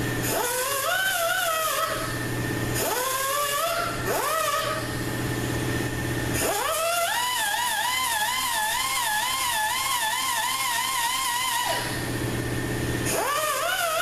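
Pneumatic right-angle die grinder grinding steel on a transmission clutch drum in four separate bursts. Each burst rises in pitch as the wheel spins up, then gives a wavering whine as it bites into the metal; the third burst is the longest, about five seconds.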